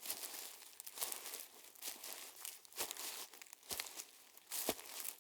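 Footsteps crunching on a loose, crackly surface, about one step a second, each step a crisp crunch.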